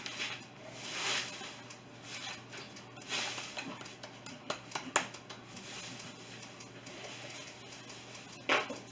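Small handling sounds of craft work: soft rustles and a few sharp little clicks and taps as craft pieces and a glue bottle are handled.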